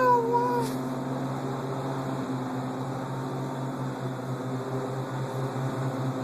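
A steady low mechanical hum. At the very start, a young child's short high-pitched vocal sound falls in pitch.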